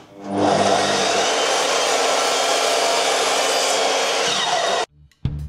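Evolution sliding mitre saw spinning up and running steadily while it trims a thin sliver off MDF picture rail. The saw noise cuts off suddenly near the end, and drum music starts.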